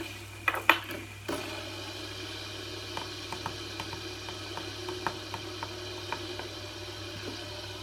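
Two fidget spinners, one of them Captain America–themed, spinning side by side in a race to see which stops last. There are a few sharp clicks about half a second to a second in, then a steady faint whirring hum with small irregular ticks.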